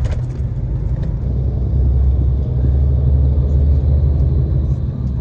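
Steady low rumble of a tour coach on the move, heard from inside the passenger cabin: engine and road noise while travelling along a highway.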